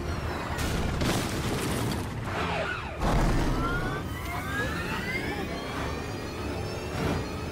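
Movie car-chase soundtrack: police sirens wailing in rising glides over the Tumbler Batmobile's engine and score music, with a heavy boom about three seconds in.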